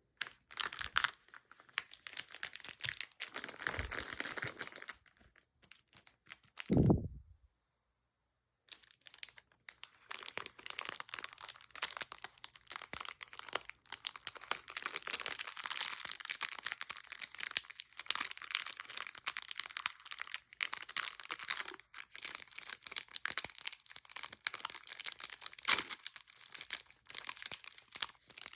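Plastic candy wrappers crinkling and being torn open, with dense crackling throughout. A low thump about a quarter of the way in is followed by a short pause, and there is a sharp crack near the end.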